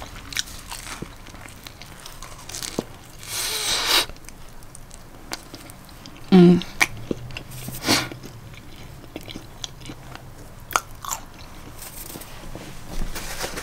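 Close-up chewing and biting of a homemade chicken quesadilla: wet mouth clicks and smacks, with a few louder bursts of noise, the loudest a little before halfway.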